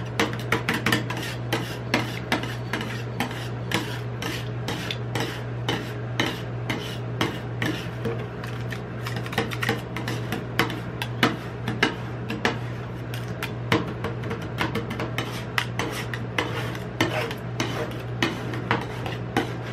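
Two metal spatulas chopping and scraping ice cream mix on a steel cold plate: quick, irregular clicks and taps of the blades striking the metal, with scraping in between, over a steady low hum.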